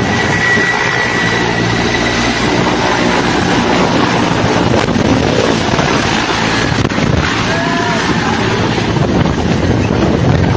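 Military helicopter's rotors and turbine engines running close by as it lifts off and flies away, with rotor wash buffeting the microphone.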